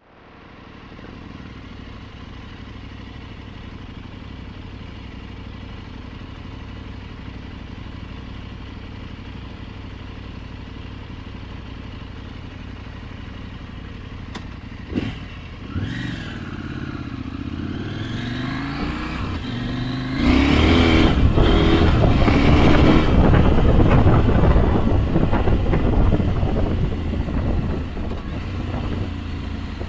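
KTM 890 Adventure R's parallel-twin engine idling steadily. About fifteen seconds in the bike pulls away, the engine note rising and falling through the gears. From about twenty seconds in, loud wind and tyre noise on gravel with scattered clatter take over.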